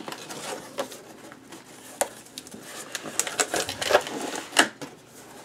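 Cardboard box flaps being pulled open by hand: scraping and rustling of the taped cardboard, with several sharp crackles, the loudest a little past halfway.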